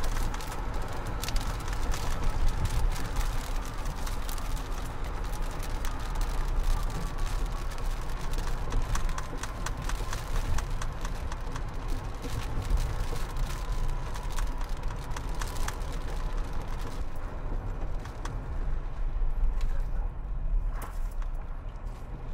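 Storm wind and rain heard from inside a vehicle: a deep steady rumble of wind buffeting the car, with raindrops striking the windshield as many sharp ticks that thin out near the end. A faint high tone slowly slides downward in pitch through most of it.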